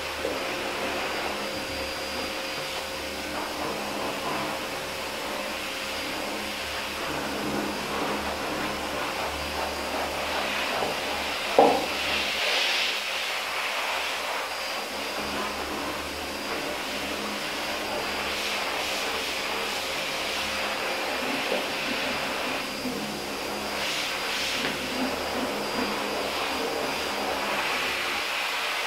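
Hands scrubbing a dog's shampoo-lathered fur, wet rubbing and squishing, over a steady motor-like hum. A brief sharp sound about twelve seconds in.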